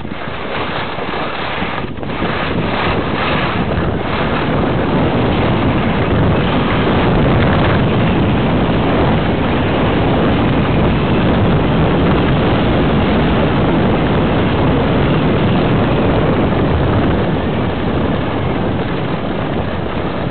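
Wind rushing over the microphone of a skier's camera on a fast descent, with skis scraping and hissing over hard-packed groomed snow. It grows louder about two seconds in and eases off a little near the end.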